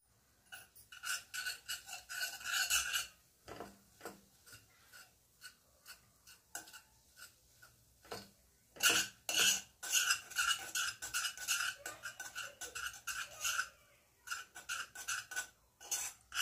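A utensil scraping and stirring a thick, crumbly mixture around a nonstick kadai in quick repeated strokes, each with a slight squeak. The strokes thin out to a few scattered scrapes for several seconds in the middle, then pick up again and run fast.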